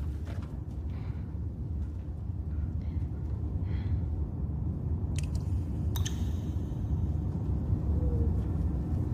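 A low, steady rumble that slowly grows louder, with a short knock about five seconds in and a sharper clank with a brief ring about a second later.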